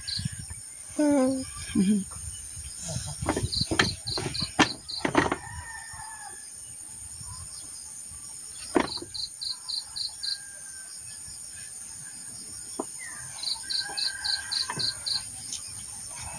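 Insect chirping in short trills of about seven quick, even pulses, repeating every four to five seconds. A brief pitched call comes about a second in, and a cluster of sharp clicks follows a few seconds in.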